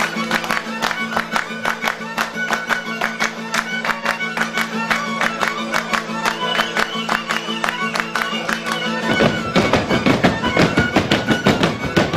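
Fast Oaș folk dance tune on violin over a steady drone, driven by hand claps and beats about five a second. About nine seconds in the drone drops out and the sound grows fuller and louder.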